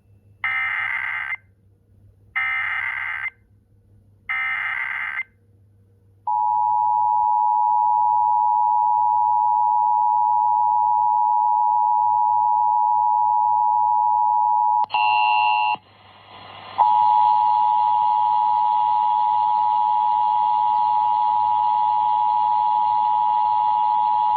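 Emergency Alert System test tones: three short warbling SAME data header bursts, each about a second long, then the steady two-tone attention signal for about eight seconds. A brief buzzy tone breaks in, and about a second later the two-tone attention signal starts again with a hiss behind it.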